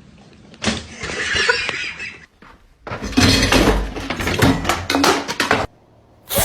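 Clattering and knocking noise in two stretches, the second one louder, with a heavy low rumble and many sharp knocks, like things being knocked over or crashing.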